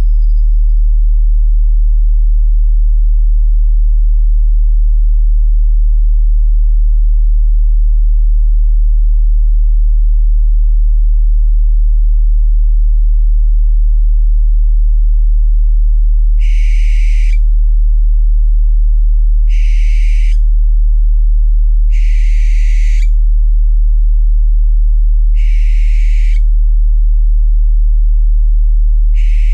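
A steady deep drone tone, the loudest sound throughout. Over it, about halfway in, an owl begins calling: five harsh, screeching calls, each under a second, about three seconds apart.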